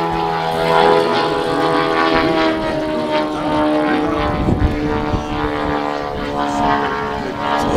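Large radio-controlled aerobatic biplane in flight: its engine and propeller drone steadily, one pitched note with many overtones.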